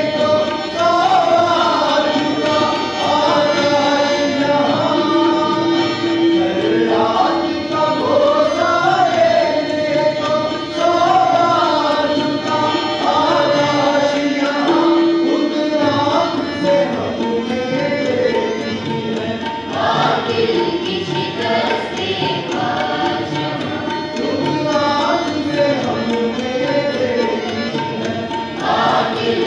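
Music: a voice singing a melody that slides up and down in pitch, with drum accompaniment and a steady held note beneath it.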